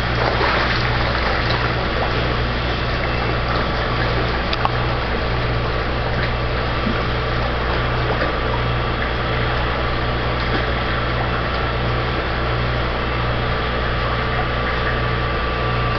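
Steady rush of water with a low, even hum from the pumps that drive a koi tank's filtration system.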